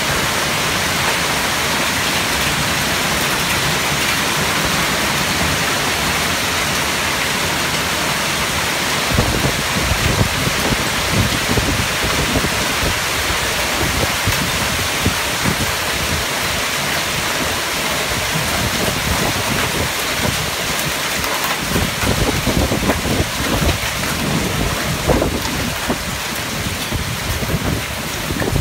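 Heavy torrential rain pouring down in a steady loud hiss, with irregular low rumbles and surges joining in from about nine seconds in.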